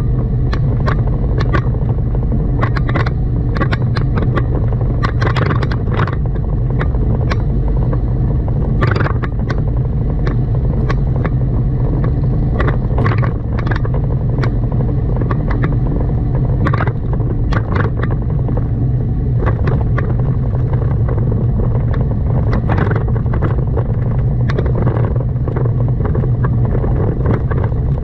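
A car driving, with a steady low rumble of engine and road noise and frequent irregular sharp clicks and rattles on top.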